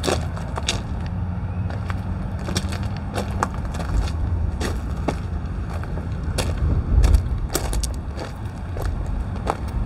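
Footsteps crunching on gravel track ballast, an irregular step about once or twice a second, over the steady low rumble of idling diesel locomotives.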